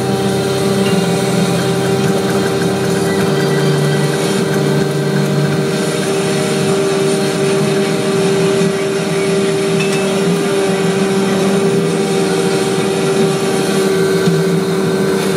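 Vacuum paving-laying machine running steadily while laying clay pavers: a constant engine drone with a steady whine over it.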